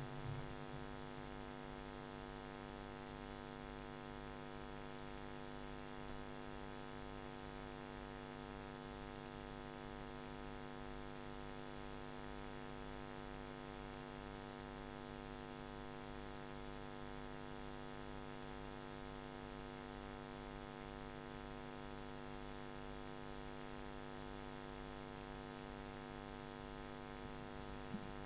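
Steady electrical mains hum with many evenly spaced overtones, unchanging throughout; a faint click sounds just before the end.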